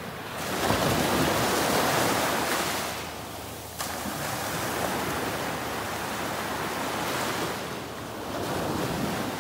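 Small sea waves breaking and washing up a sandy beach in shallow surf, a steady rush that swells loudest about a second in, dips briefly, rises suddenly again near the middle and swells once more near the end.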